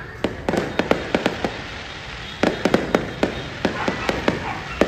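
Aerial fireworks shells bursting in a rapid, irregular string of bangs, with a short lull about a second and a half in before the bangs pick up again.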